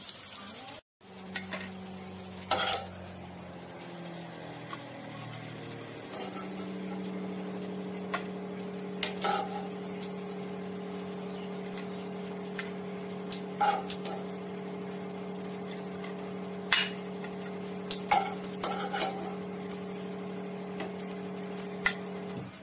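A metal serving spoon clinking against the pan and a ceramic plate as fried chicken pieces are plated: about ten separate sharp clinks, over a steady low hum.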